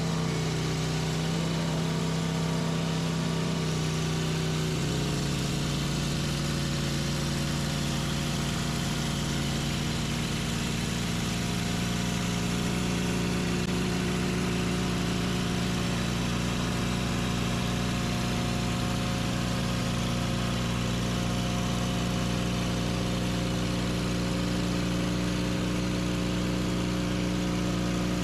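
Sawmill engine running steadily under a sustained drone, its tone shifting about five seconds in.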